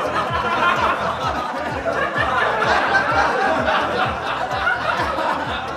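Dance music with a steady beat, with a crowd laughing loudly over it.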